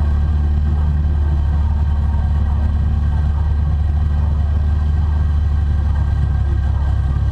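Car engine running at idle with a steady, deep rumble, heard close up over an open cut-out in the hood as the car creeps forward slowly.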